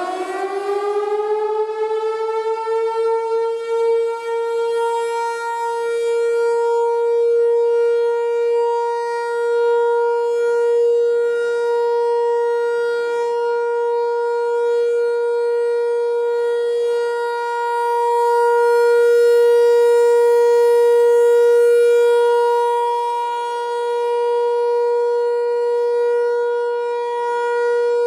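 ASC T-128 electromechanical tornado siren finishing its wind-up in the first second or two, then sounding the steady Alert tone. Its loudness swells and fades slowly, the largest swell coming about two-thirds of the way in.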